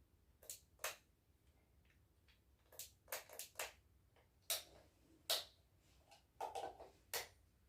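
Scattered sharp clicks and light knocks, about a dozen at irregular intervals, from handling the jigsaw just before it is switched on.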